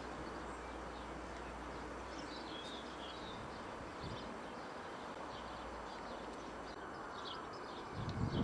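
Faint birds chirping now and then in short high calls over a steady outdoor background hiss; a low rumble sets in near the end.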